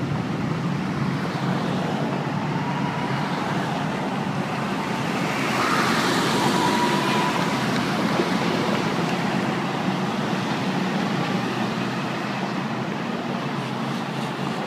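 Motorcade of police cars, SUVs and the presidential limousine driving past at low speed: a steady run of engine and tyre noise, louder as a vehicle passes close about six seconds in.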